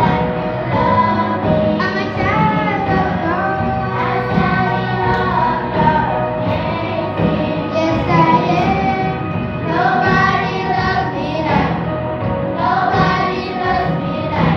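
A children's choir singing a song together, the voices amplified through handheld microphones.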